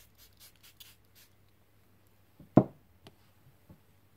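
Pump bottle of Clarins makeup setting spray misting a quick run of about half a dozen hissy spritzes over the first second or so. A single loud thump follows about two and a half seconds in, with a few faint clicks after it.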